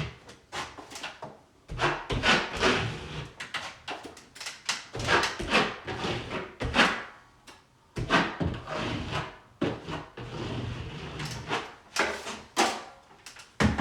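A 6-inch drywall knife scraping setting-type joint compound out of a mud box and spreading it into ceiling seams: a run of irregular rasping scrapes with occasional knocks of the knife against the box.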